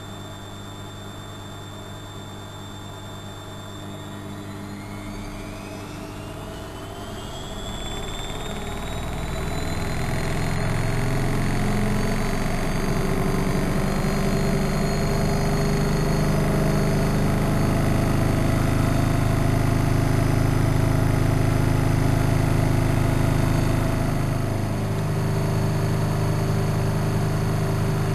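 Studio WM26AAA washing machine's drum motor spinning up: a whine rises in pitch and the sound grows louder over about eight seconds, then the spin runs steadily at full speed, easing briefly near the end.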